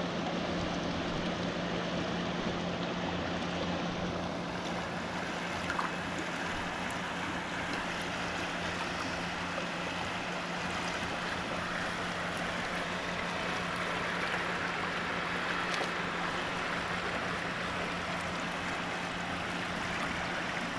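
Steady rush of flowing creek water, with a faint low hum beneath it.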